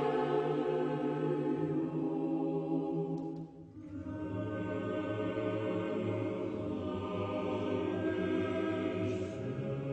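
Choir singing slow, sustained sacred chant in long held chords. The sound dips briefly about three and a half seconds in, then low voices carry on.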